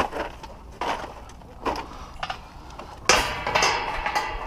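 Plastic bag full of aluminum cans rustling and clinking as it is carried. There are a few scattered knocks, then a louder crinkling rattle about three seconds in.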